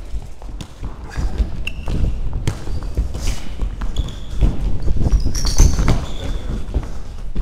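Running footsteps thudding through a chest-mounted action camera, the wearer's body movement jolting the mount, with a few short high shoe squeaks on the hall floor.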